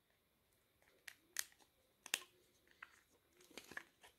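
A few faint, sharp plastic clicks as the battery cover is unlatched and slid off a Motorola T720c flip phone, the loudest about two seconds in.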